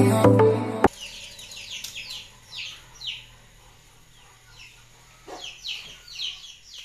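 Electronic intro music that stops abruptly under a second in. Then small birds chirp repeatedly, short chirps that fall quickly in pitch, some close together and some spaced apart.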